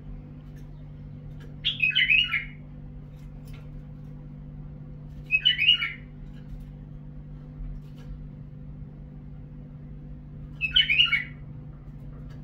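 Caged white-eared bulbul (Iraqi bulbul) singing three short, loud whistled phrases a few seconds apart, over a steady low hum.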